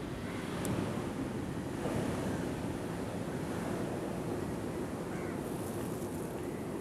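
Steady low outdoor rushing noise of wind and surf, with one faint tick a little under a second in.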